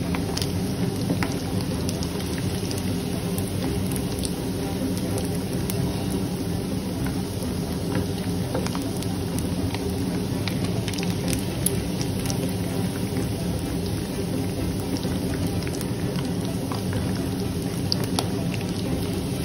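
Beef tikka boti pieces sizzling and crackling as they fry in hot oil in a pan, over a steady low hum.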